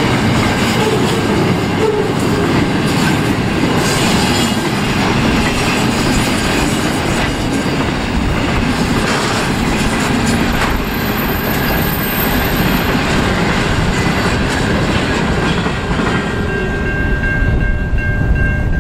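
Freight train wagons rolling past with a steady rumble and rattle of wheels on rail. A brief high squeal comes about eleven seconds in, and near the end, as the last wagons clear, a steady high ringing sets in.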